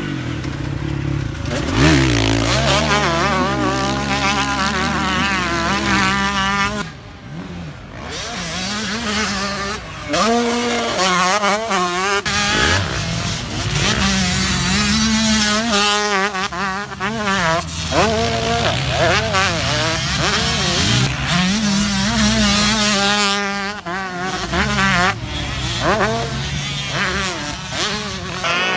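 Two-stroke motocross dirt bike engine revving hard on the track. The pitch climbs and falls again and again as the throttle is opened and closed through the gears, with a brief drop in level about seven seconds in.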